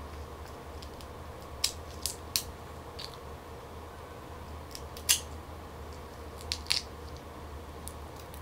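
Shell of a steamed black tiger prawn snapping and crackling as it is peeled apart by hand: a handful of short, sharp cracks spread out over several seconds.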